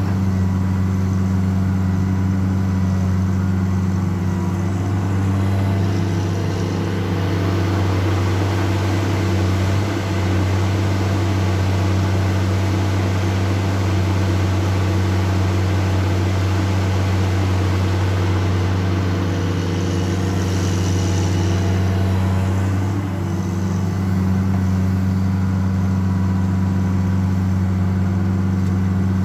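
Caterpillar 336D L ME hydraulic excavator's six-cylinder C9 diesel running steadily at working revs while the machine swings and digs, a loud, even low drone.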